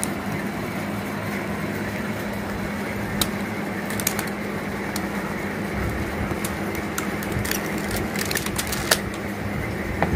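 Light clicks and taps of cardboard takeaway boxes being handled and set down on plates, over a steady background hum and hiss.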